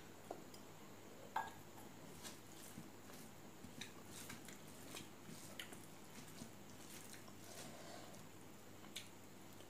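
Faint wet squishing and scattered small clicks of fingers mixing rice and pork curry on a steel plate, with soft chewing. The loudest click comes about a second and a half in.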